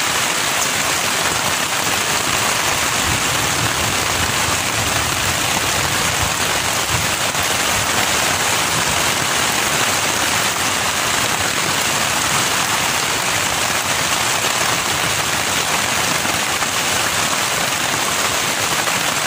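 Heavy wind-driven rain falling steadily on a tent's rain fly, heard from inside the tent as a dense, even hiss.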